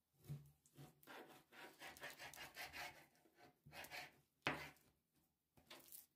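Chef's knife slicing and scraping through raw chicken breast against a plastic cutting board, cutting the meat off the bone: a run of irregular rubbing and scraping strokes, with one sharper knock about four and a half seconds in.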